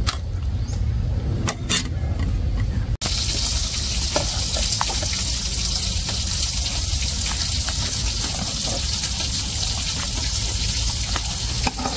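Sour soup being ladled from an aluminium pot into a bowl: liquid pouring and splashing as a steady watery hiss, with a few light clinks of the metal ladle. A sudden break about three seconds in.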